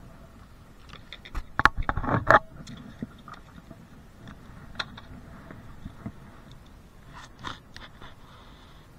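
Handling noise close to the microphone: a quick run of scrapes and knocks about a second and a half in, then scattered clicks and rubbing, with a few more knocks near the end.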